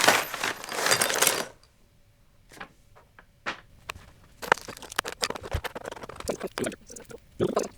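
Small drone-frame parts and screws clinking and clicking as they are handled, after a louder rattling clatter in the first second and a half.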